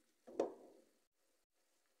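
Glass pot lid set down onto a frying pan: a single clink about half a second in that dies away quickly.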